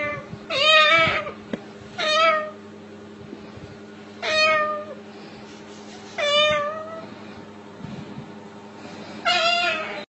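A parrot imitating a cat's meow: five separate meows, one roughly every two seconds, each a wavering call that rises and then falls away.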